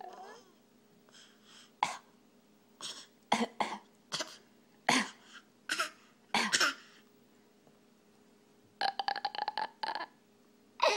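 A series of short, separate fake coughs, traded between an adult and a baby copying them. About nine seconds in comes a rapid run of short pulses lasting about a second, a silly throat noise.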